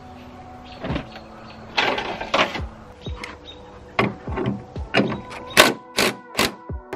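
Cordless impact driver running in several short bursts on the bolts of a Subaru WRX's hood hinges, one longer run about two seconds in and quicker ones near the end.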